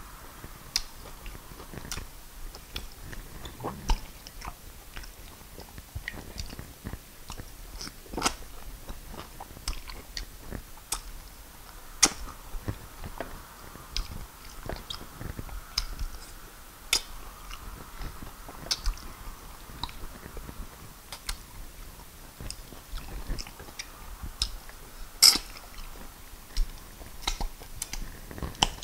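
Close-miked mouth sounds of someone eating fufu and peanut soup with the fingers: wet chewing and sharp, irregular mouth clicks, the loudest click about three-quarters of the way through.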